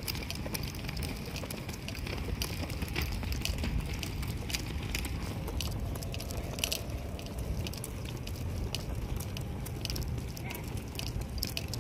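A loaded folding wagon rolling along a concrete path: a steady low rumble from its wheels with irregular clicks and rattles from the wheels and the gear piled on it.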